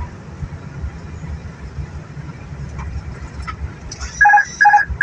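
Airbus A320 on its landing rollout, a steady low rumble heard inside the cockpit. About four seconds in, three short electronic beeps sound, evenly spaced about half a second apart.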